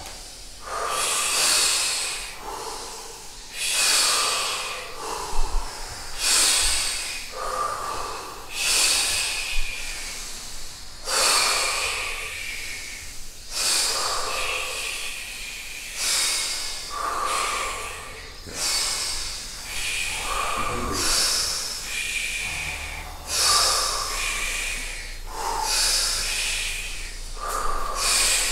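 People breathing deeply and forcefully in a steady rhythm, one loud breath about every two and a half seconds. This is the deep-breathing round that comes before a breath hold.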